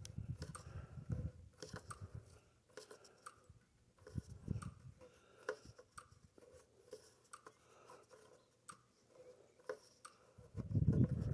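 Irregular small clicks and rustles of hands working with small parts, with a few short bursts of low rumble, the loudest near the end.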